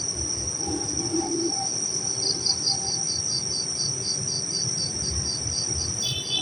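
Night insects: crickets trilling steadily and high, with another insect chirping in a regular pulse about four times a second, over low rumbling handling noise.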